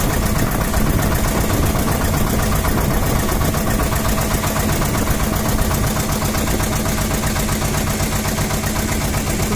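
Small boat's engine running steadily at a constant speed, heard from on board.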